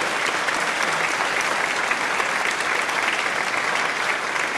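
Applause: many hands clapping steadily, without a break.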